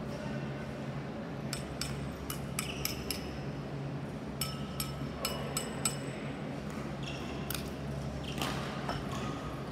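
Ceramic diabolo clinking as it is handled: groups of sharp clinks, each with a short ringing tone, over a steady low hum.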